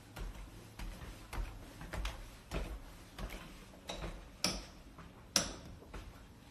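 A steady series of light clicks and knocks, a little under two a second, with two sharper, louder clicks about four and a half and five and a half seconds in.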